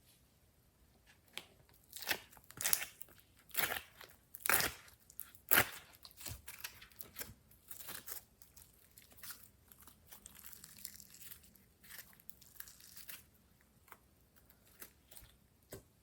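Glossy slime being squeezed and stretched by hand, giving irregular sticky pops and crackles. The pops are loudest in the first half, then turn softer and closer together.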